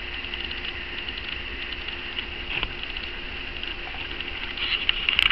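Steady electrical hiss with a thin high whine and light crackling, broken by a few sharp clicks near the end.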